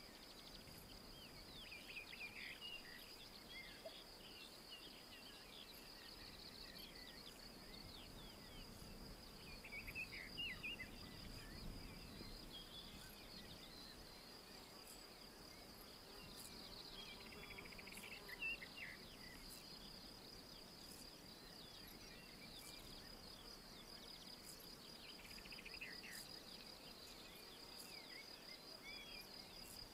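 Faint woodland ambience: an insect trills steadily and high throughout, while songbirds sing short chirping phrases four times, the loudest about ten and eighteen seconds in.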